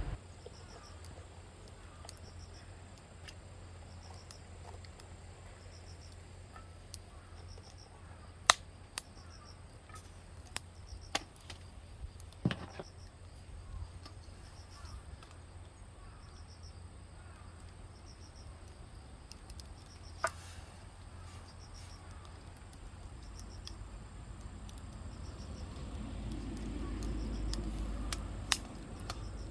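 Crickets chirping steadily in a regular repeating rhythm, with a few scattered sharp clicks and knocks and a low rumble that swells near the end.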